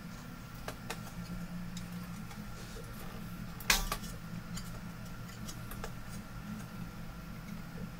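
Handling noise from a monitor's metal-framed mainboard assembly: a few light clicks and one sharper metallic click with a brief ring about four seconds in, over a steady low hum.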